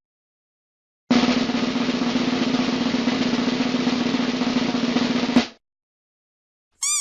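Snare drum roll sound effect, about four seconds of rapid strokes, ending abruptly with a sharp hit. A brief warbling chirp follows near the end.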